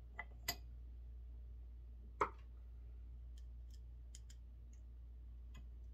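Small clicks and taps of a round metal bottle-opener insert and its screws being handled and set down on a wooden mallet head: two light clicks at the start, a sharper tap about two seconds in, then a few faint ticks, over a steady low hum.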